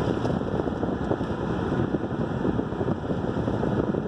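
Strong storm wind blowing across the microphone, a continuous low rumbling buffet that rises and falls in quick gusts.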